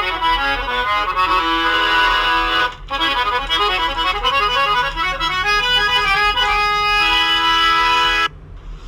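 Background instrumental music: a melody of sustained, reedy notes with a brief break about three seconds in. The music cuts off about a second before the end, leaving only a faint low hum.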